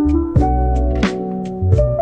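Background music with a steady drum beat over held bass and melody notes.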